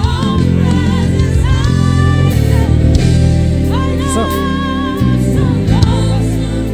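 Gospel worship music: sung vocals over a band with steady bass and sustained chords.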